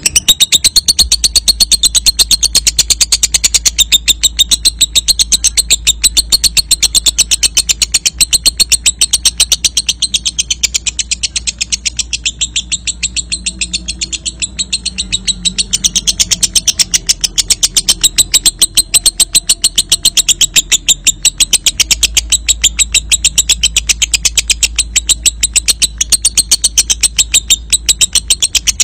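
Lovebird 'ngekek': a long, unbroken run of rapid, shrill chirps repeated at an even pace, dipping slightly in loudness about halfway through. This is the long chattering song that is played as a lure to get other lovebirds singing.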